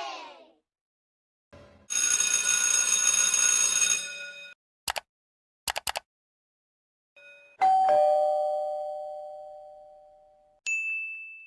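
A two-tone ding-dong doorbell chime that rings out and fades over about three seconds. Before it comes a ringing effect of about two and a half seconds, then a single click and a quick run of three clicks; near the end a short high beep.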